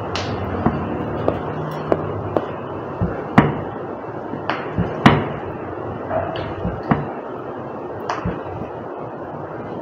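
A series of sharp clicks and knocks at irregular intervals, about fifteen in all, the loudest a little after three seconds in and about five seconds in, over steady background noise.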